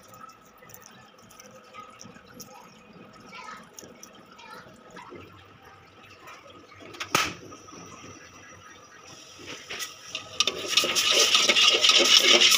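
Water running and splashing into a pot, starting about ten seconds in and loud from then on. Before it there are quiet handling sounds and a single sharp knock about seven seconds in.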